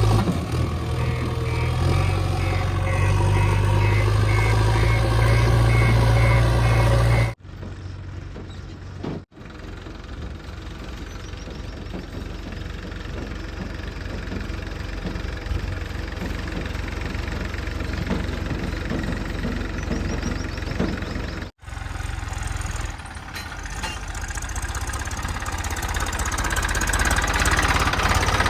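Diesel engine of a JCB 3DX backhoe loader running at work. It is loud and steady for the first seven seconds, then drops suddenly to a quieter steady run, with further abrupt breaks later on.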